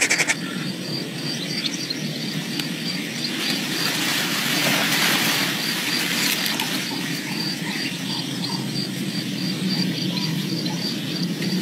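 Insects chirping in a steady, even rhythm of about three high chirps a second over a constant outdoor background hiss. A loud burst of noise stops a moment in.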